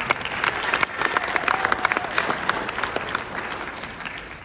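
Audience applauding, a dense patter of hand claps that thins out and fades near the end.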